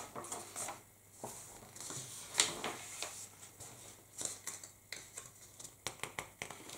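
Paper pages of a model kit instruction booklet being turned and handled: soft rustles with a few sharper crackles, the clearest about two and a half and five seconds in.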